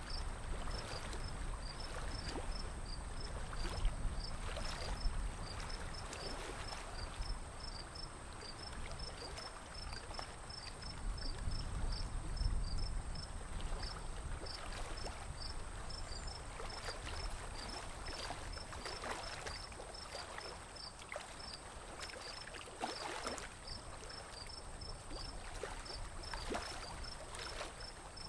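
Lake water splashing and trickling against a small wooden boat as hands reach in and pull at water lilies and weeds, with scattered crackles and a low rumble. Behind it runs a regular high chirping, about two to three a second, and a thin steady high tone.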